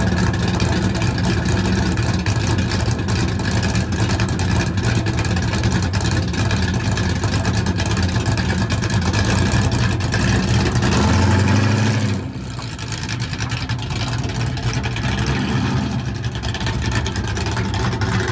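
1968 Dodge Dart's small-block Mopar V8 running just after being started. It idles steadily, revs briefly about eleven seconds in, then runs quieter as the car pulls away.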